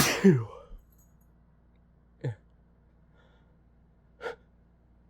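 A person sneezing hard right at the start, a loud sudden burst with a voiced cry that falls in pitch. Two short, much quieter breaths follow about two and four seconds in.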